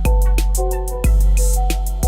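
Background music with a steady beat: heavy bass hits about once a second under a plucked melody.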